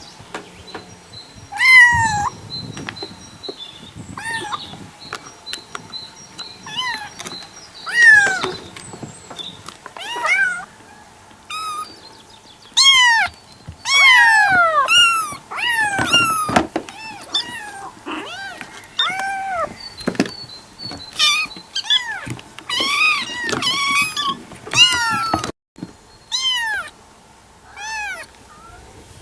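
Kitten meows: a long run of high, arching mews, one after another with short gaps and some overlapping.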